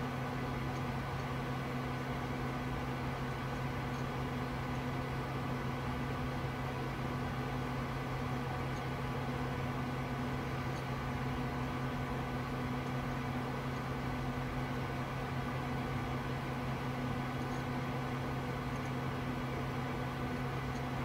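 Steady whir of a running desktop PC's cooling fans and power supply, with a constant low hum under it.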